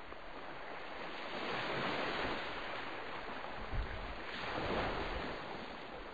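Rushing noise of wind and waves, swelling and fading twice, with a brief low thump between the two swells.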